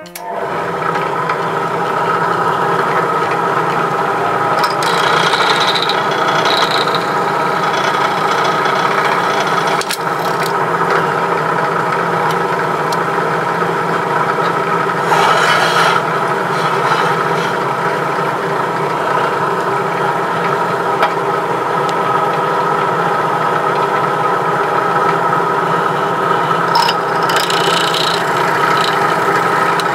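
Benchtop drill press motor running steadily, with the bit cutting into the die-cast toy car's rivets in three short stretches: a few seconds in, midway, and near the end.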